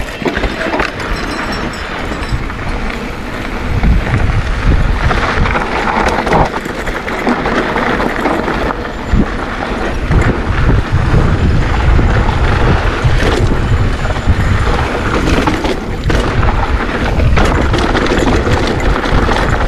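Wind buffeting the microphone of a bike-mounted or helmet camera while a mountain bike rolls fast down a rough dirt trail, tyres and frame rattling over the ground. The low rumble grows heavier about four seconds in.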